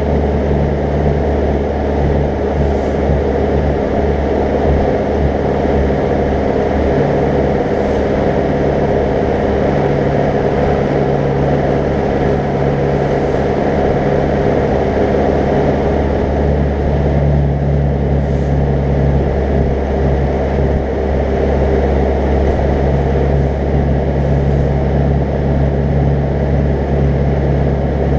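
Zetor 10145 tractor's diesel engine running steadily at road speed, pulling an 8-cubic-metre slurry tanker.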